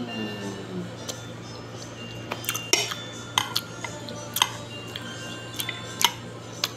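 Metal spoon clinking and scraping against a plate while scooping rice: about a dozen sharp clinks at uneven intervals. A steady low hum runs beneath.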